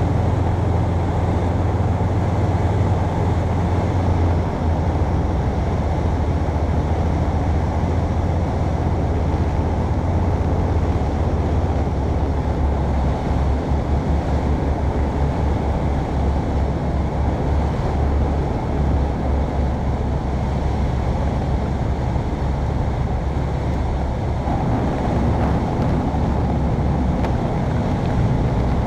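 Rotax engine of a Land Africa ultralight, heard from inside the open-sided cockpit with rushing air noise, throttled back on final approach and landing. The engine note drops in pitch about four seconds in.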